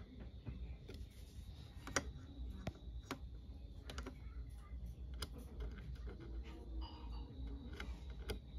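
Scattered light clicks and taps, irregularly spaced, over a low steady hum.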